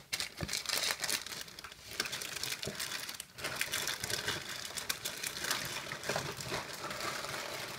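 Plastic lolly wrappers and a plastic bag crinkling and rustling as packets of sweets are handled and put back into the bag. The crinkling is irregular and continuous.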